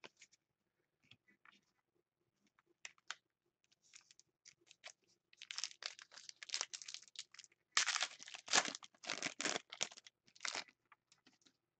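Foil trading-card pack being torn open and crinkled by hand: a few light clicks at first, then a long run of crackling tears and crinkles, loudest from about eight seconds in.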